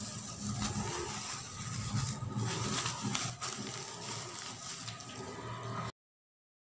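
Dry coconut coir fibre and newspaper rustling and crackling as hands wrap and press the husk fibre, with a few sharp clicks over a low hum; the sound cuts off to dead silence near the end.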